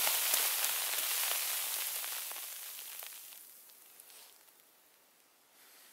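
Snow pouring off laden conifer branches onto a person: a soft, hissing patter of falling snow that fades away over about five seconds, with a few light ticks.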